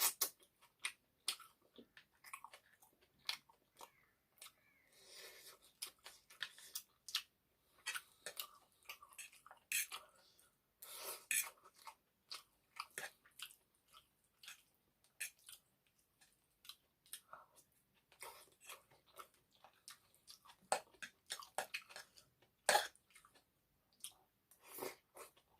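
Close-up eating sounds of egg noodles with chicken curry being chewed, as a steady stream of irregular short mouth clicks.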